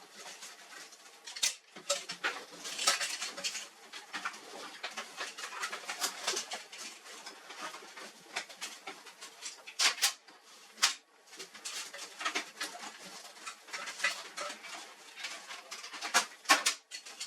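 Irregular clicks, knocks and light clatter of hard plastic and metal printer parts and tools being handled during disassembly of an HP LaserJet 4345, with a few sharper knocks about ten and eleven seconds in and near the end.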